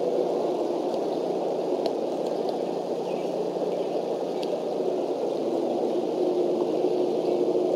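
Steady low rushing noise with a faint hum under it, and a few faint high ticks.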